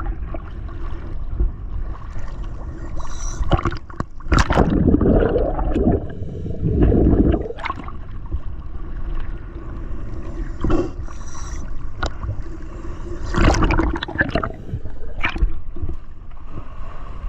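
Water gurgling and bubbling, with two louder bubbling surges a few seconds in and several sharp knocks scattered through.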